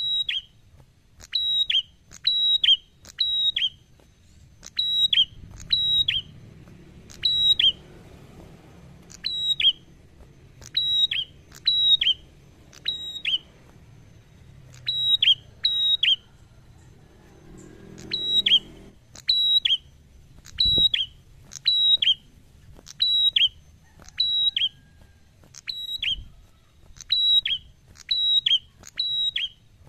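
Caged tailorbird (prenjak) singing: loud, sharp whistled notes that fall in pitch. They come in quick groups of two or three, repeated every second or two.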